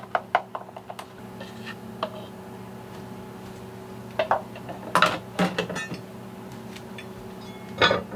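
Cookware clatter: a utensil clicking quickly against a mixing bowl of batter in the first second, then a few separate knocks and scrapes of a cast iron skillet moved on a gas hob grate, the last near the end.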